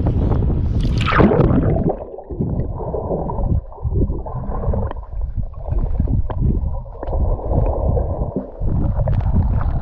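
A splash as the swimmer ducks under the sea about a second in, then muffled underwater gurgling and rumble heard through an action camera submerged in the sea, dull with the highs cut off, with a few small ticks.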